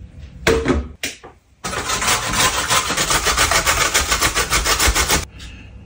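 Carrot being grated on a metal box grater standing on a wooden cutting board: fast, even rasping strokes, several a second, that stop abruptly near the end. Before them, a short clatter as the grater is set down.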